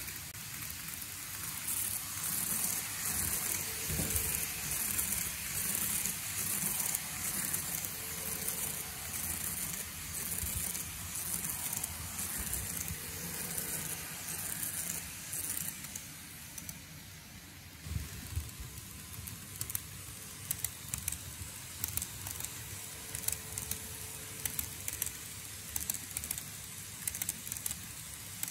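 TOMIX N gauge E231 series model train running along sectional track: a steady rattle of small wheels on the rails, dense while the cars pass close, then giving way to a string of sharp clicks in the last third.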